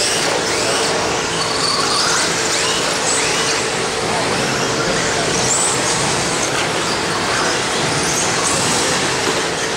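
Electric 1/10-scale R/C stadium trucks racing on a dirt track, their motors whining up and down as they accelerate and brake, over a steady wash of noise and a low steady hum.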